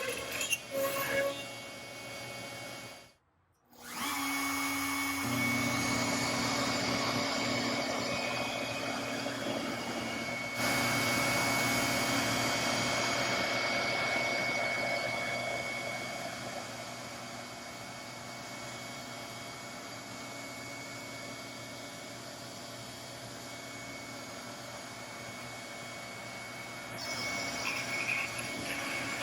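CNC router cutting wood: a steady high spindle whine over machine noise, changing abruptly a few times where separate clips are joined, with a brief drop to near silence about three seconds in.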